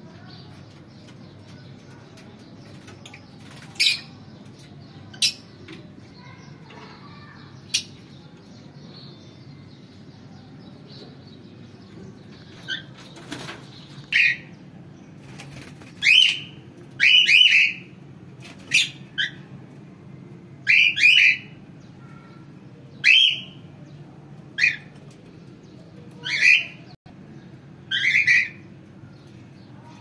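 Small parrots giving short, shrill calls. A few come well spaced at first, then about one a second through the second half, over a steady faint low hum.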